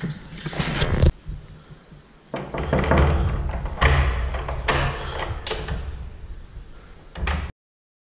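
A metal gate latch clicks and rattles as the gate is opened. After a short lull comes a string of knocks, thuds and clunks as a door is handled. The sound cuts off suddenly near the end.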